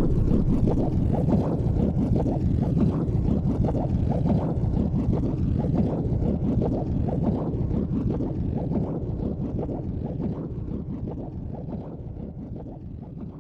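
Wind rumbling and buffeting on the microphone, fading gradually.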